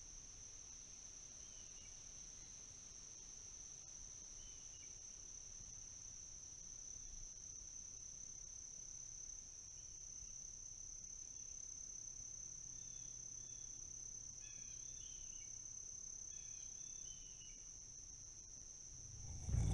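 Faint outdoor ambience: a steady high-pitched insect trill, with faint short bird chirps scattered through it, most of them in the second half.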